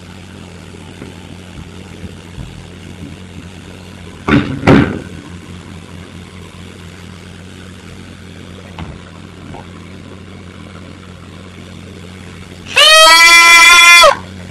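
A person's loud, high-pitched squeal lasting about a second, near the end, over a steady electrical hum. Two short loud thumps come about four seconds in.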